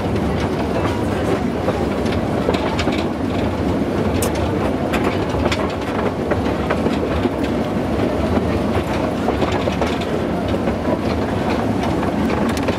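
Narrow-gauge train running, heard from on board: a steady rumble of wheels on the rails with frequent short clicks and clacks.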